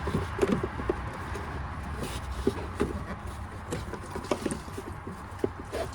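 Scattered light clicks and knocks of plastic cowl trim being handled and pushed into place, at irregular intervals over a low steady rumble.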